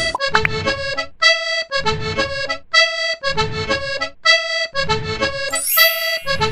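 Background music: a bouncy, accordion-like tune of short repeated chords over a bass, with a steady beat of about two chords a second.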